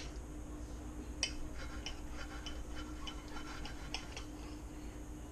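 Table knife sawing through a pork chop on a plate, the blade and fork giving a run of faint ticks and scrapes against the plate, with a sharper click about a second in and another near four seconds.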